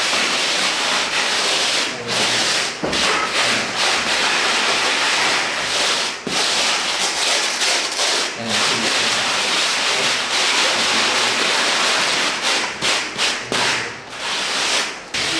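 A block of polystyrene foam rubbing and scraping in continuous strokes over a fresh cement-plastered wall, floating the plaster smooth. There are short breaks between strokes, most of them near the end.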